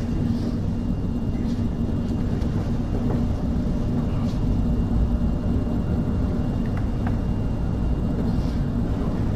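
Steady low rumble of room background noise with a faint hum, and a few faint clicks.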